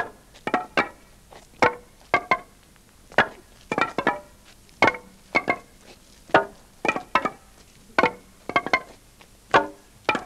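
Sparse, sharp pitched notes from an instrument, each dying away quickly, sounding singly or in quick groups of two or three at irregular intervals.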